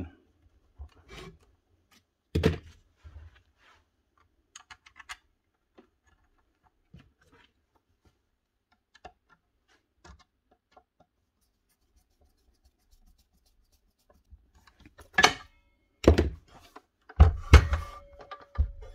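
Hard objects being handled and set down: scattered knocks and rubbing, with one louder thunk about two seconds in and several loud knocks near the end, and long quiet stretches with only faint ticks in between.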